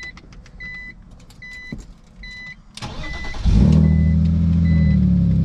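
Repeated electronic chimes from the car. Then the BMW Z4 with aftermarket headers is cranked, and its engine catches about three and a half seconds in, settling into a loud, steady cold-start idle.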